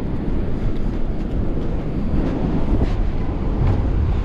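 Wind buffeting the microphone: a steady low rumble with no pitched tones.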